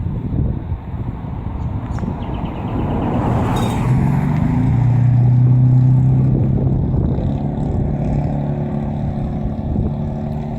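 Car driving along a road: steady engine and tyre noise that swells to its loudest about halfway through, with a steady engine hum, then eases slightly.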